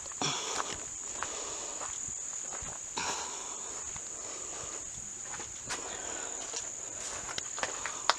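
A steady, high-pitched insect chorus, with footsteps scuffing every few seconds.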